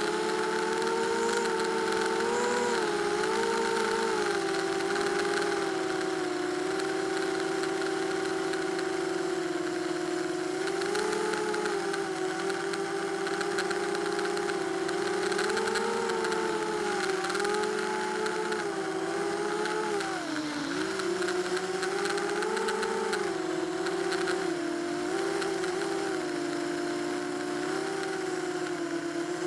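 Small FPV drone's electric motors and propellers whining, heard through its onboard camera, the pitch rising and falling with throttle and dipping sharply about twenty seconds in.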